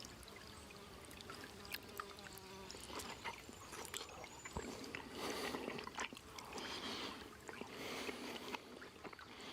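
Campfire cooking sounds: a steady hiss of sizzling with many scattered sharp crackles and pops, the hiss swelling twice in the second half.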